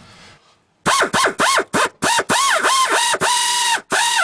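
Power drill with a quarter-inch bit drilling out a broken, rusted exhaust manifold bolt in a GM 454 V8 head. Starting about a second in, it is triggered in about ten short bursts, its motor whining up and down with each pulse over the grinding of the bit in the steel.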